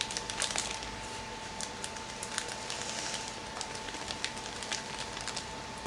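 Small scissors snipping through a thin clear plastic bag, with the plastic crinkling and many small sharp clicks, busiest around the middle. A faint steady whine runs underneath.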